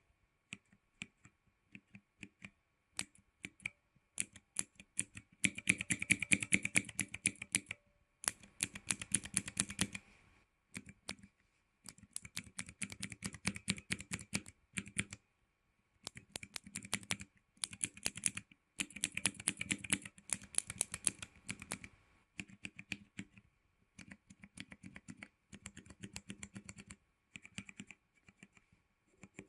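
Cherry MX mechanical key switches with keycaps fitted and no O-rings, pressed over and over in quick runs of clicking and clacking. There are short pauses between the runs.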